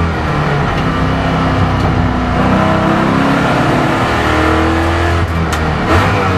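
Camaro race car engine heard from inside the cockpit, running hard with its pitch shifting, rising and falling as the car accelerates and changes gear. A couple of sharp clicks sound near the end.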